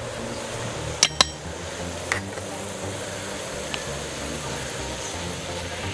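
Sharp metal clinks against a stainless-steel plate as flour is tipped out of a small bowl: two quick clinks about a second in, then a lighter one a second later, over a steady low background noise.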